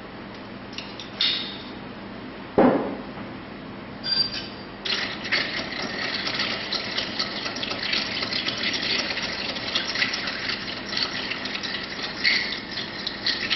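A few light clinks and one loud thump, then from about five seconds in brut cider is poured into a glass of ice, fizzing and crackling steadily.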